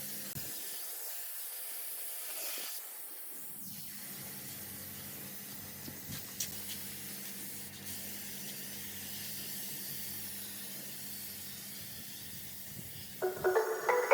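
Spray gun hissing steadily as it sprays, with a brief break about three seconds in and a faint low hum underneath. Music with bright mallet-like tones comes in near the end.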